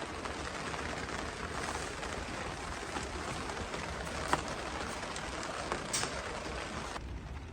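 Steady rain falling, with a few sharper drop ticks; the hiss thins out abruptly near the end.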